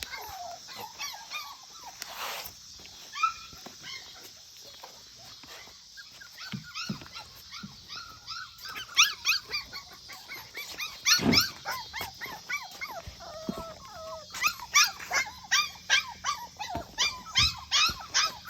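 Young puppies crying: many short, high-pitched whines and yelps in clusters, busiest in the second half.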